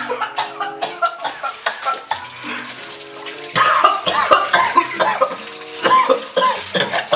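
A man coughing and gagging over a kitchen sink, his reaction to swallowing a raw egg, with water running from the tap. Background music with held notes plays underneath.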